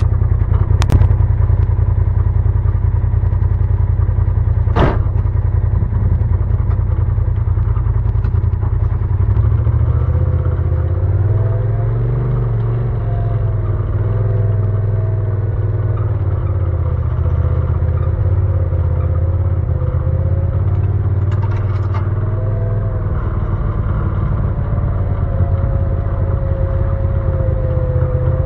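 Side-by-side UTV engine running as the machine drives an off-road trail, a steady low drone with its pitch wandering a little. A few sharp knocks stand out, one about five seconds in.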